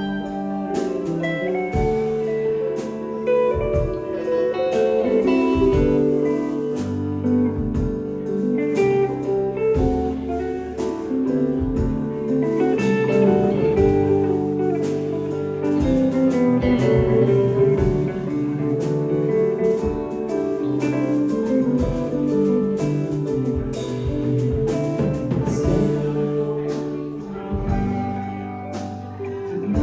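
Live band playing an instrumental passage with no singing: a guitar lead over bass and drums, the drum hits coming at a steady beat.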